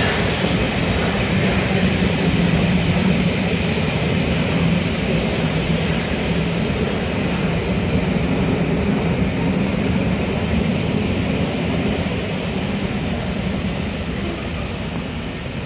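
Passenger coaches of a train rolling past, a steady rumble of wheels on the rails that grows quieter near the end as the train slows to a stop.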